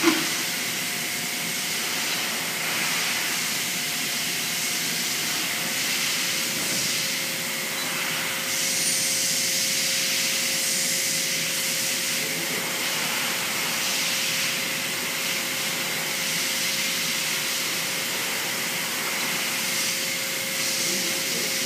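Steady hiss with a faint steady hum, opening with a single sharp knock. A brighter hiss swells for a couple of seconds about nine seconds in.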